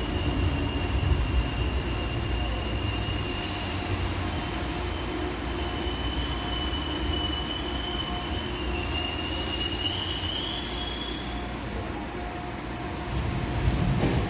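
Seoul Line 3 GEC chopper-controlled electric train pulling into the station and braking, with a low rumble under a steady high squeal. The squeal wavers and rises slightly, then stops about 11 seconds in as the train comes to rest. Two bursts of hiss come through along the way.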